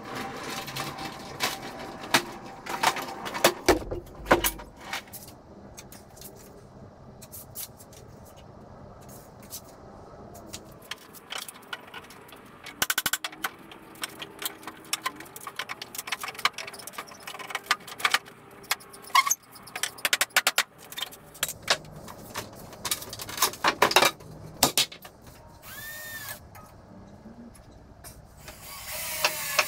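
Irregular sharp knocks and wooden clatter as pallet timber is struck and pried apart with a hammer. A handheld power tool runs briefly near the end.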